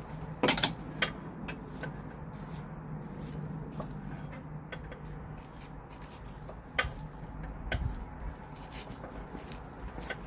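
Irregular metallic clicks and knocks of hand tools working on bolts under the car, with the loudest cluster about half a second in and another near seven seconds.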